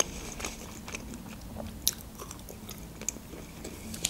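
Close-miked chewing of a mouthful of grilled shashlik meat, with irregular small mouth clicks and smacks; one louder click comes a little under two seconds in.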